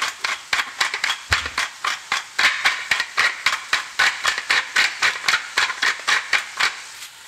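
Hand-twisted salt grinder grinding salt crystals: a rapid, steady run of grating crunches, about five a second.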